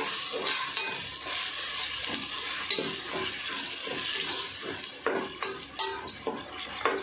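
Chopped tomatoes and onions sizzling in hot oil in a heavy metal kadai while a metal spatula stirs them, sautéing them down with salt. About five seconds in the sizzle drops away and separate scrapes and taps of the spatula against the pan stand out.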